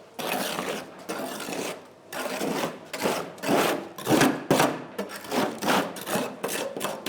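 Repeated rough scraping strokes, slow at first and then about two a second from midway on.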